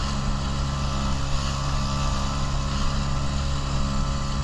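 Small boat's outboard motor running at steady speed: an even, low engine drone.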